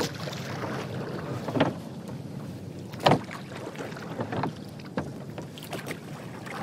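Water splashing and lapping around a small paddled boat moving across a lake, with a few louder splashes and steady wind noise on the microphone.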